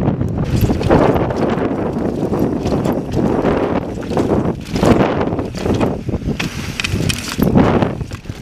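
A mountain bike riding fast over sandstone slickrock: wind gusting on the microphone and tyres rolling and rattling over the rock, in surges. Sharper clicks and knocks come in the second half, where the trail turns to broken rock and ledges.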